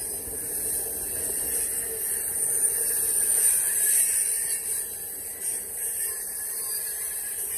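Freight train of tank cars and covered hoppers rolling past close by: a steady high hiss of steel wheels running on the rails.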